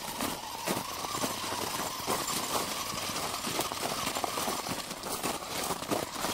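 Small electric motor of a radio-controlled off-road crawler whining steadily as it drives over snow, with footsteps crunching in the snow.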